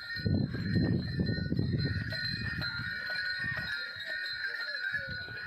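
Small bells, as worn by working bulls, ringing steadily, over a low uneven rumble that eases off about four seconds in.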